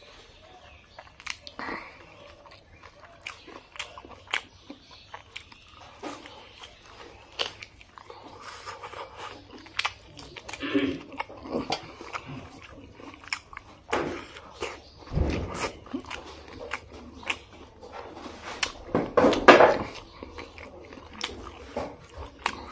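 Close-up mouth sounds of a person eating rice and curry by hand: wet chewing and lip smacks with many small clicks, growing louder and busier in the second half, loudest a few seconds before the end.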